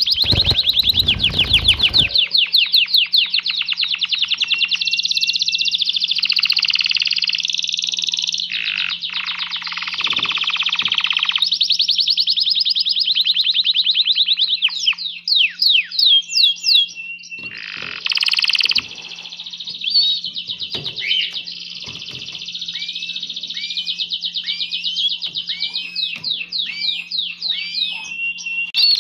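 Male canary singing a long song of fast rolling trills, repeated chirps and rising whistled notes, its courtship song in breeding excitement. A brief low rustle at the start as the birds flap.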